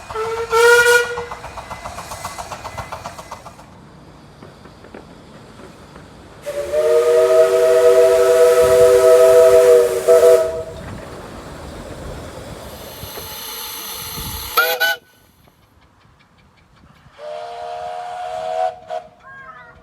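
Several steam locomotive whistle blasts from separate clips: a short toot about half a second in, then a long chord whistle sounding three notes together for about four seconds. Steam hiss follows, ending in a short blast, and another chord whistle sounds near the end.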